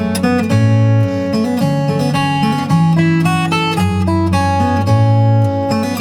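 Steel-string acoustic guitar played fingerstyle in country three-finger picking: a steady alternating bass under a quick picked melody.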